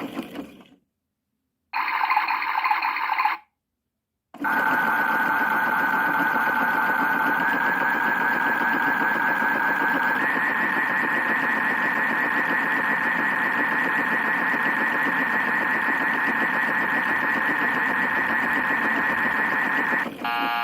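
Battery-powered toy washing machine running its drum: a short burst, then after a pause a steady electric-motor whine that steps up in pitch twice as it speeds up. A buzzer sounds just at the end.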